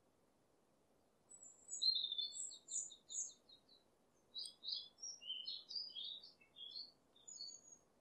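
A small songbird singing two quick phrases of high chirping notes. The first comes a little over a second in, the second about half a second after it ends. A faint steady hiss lies underneath.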